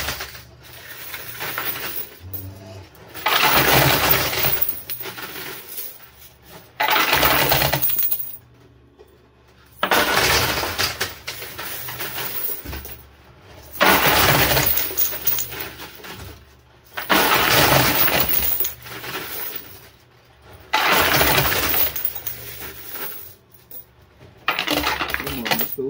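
Quarters clattering on a coin pusher machine: a burst of coin clatter every three to four seconds, each lasting a second or two.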